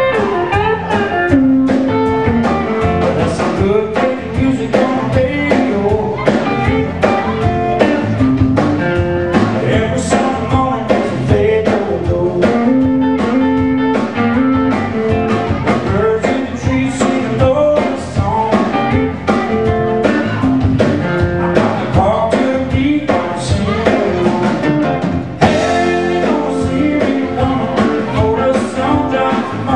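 Blues music: electric guitar over bass and a drum kit, with a steady beat.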